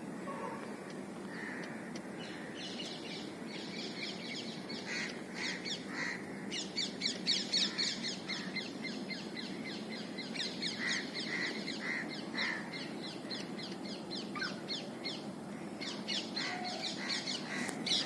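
Birds calling: long runs of quick, high chirps, several a second, with lower, separate calls mixed in over a steady low background rumble.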